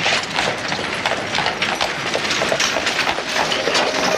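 Horse-drawn wagon clattering: a dense run of quick wooden knocks and rattles.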